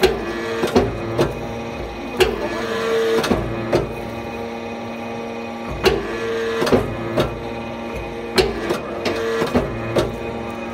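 Anyang hydraulic forging press squeezing a red-hot billet: a steady hydraulic hum whose upper tone swells for about a second at a time as the press works, broken by about a dozen sharp knocks and clanks at irregular intervals.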